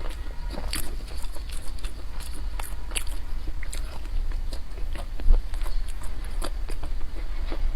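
Close-up biting and chewing of a dense nut-studded bread loaf (da lieba), with irregular crunches.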